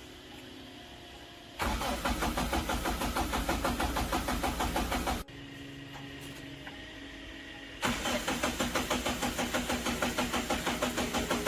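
Old truck engine being cranked by its starter in two bursts of about three and a half seconds each, an even chugging of about six beats a second, each burst starting and stopping abruptly.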